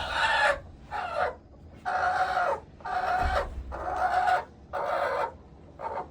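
A chicken calling loudly in a rapid series of about seven short, harsh squawks, each under a second long and about a second apart.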